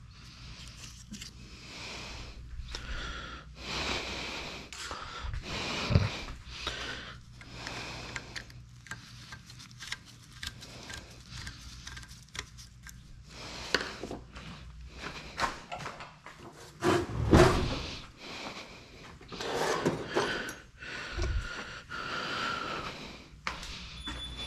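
Irregular knocks, clicks and scrapes of hard objects being handled and set down, loudest about six seconds in and again a little past the middle.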